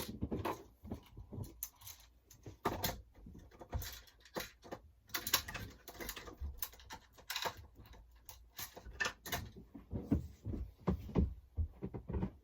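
Light, irregular hammer taps and small knocks: a hammer tapping in fasteners for LED light strips.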